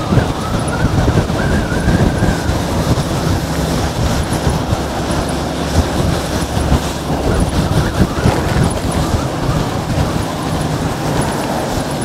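Steady wind rumble on the microphone, with tyre noise on wet pavement, while riding an electric moped.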